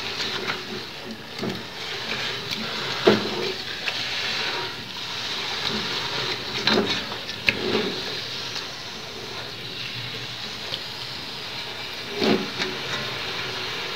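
Raw chicken pieces sizzling in hot oil and fried onion paste in a metal pot, at the start of browning. A plastic spatula stirs them, scraping and knocking against the pot a few times.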